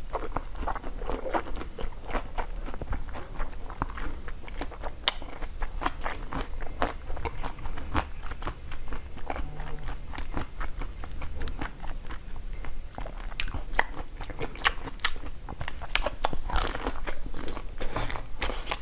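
Biting and chewing a blue-coated ice cream bar: crisp, irregular crunches and mouth clicks, coming thicker near the end.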